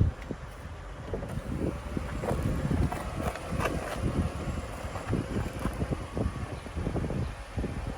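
Wind buffeting the microphone in irregular low rumbling gusts, with a few faint clicks.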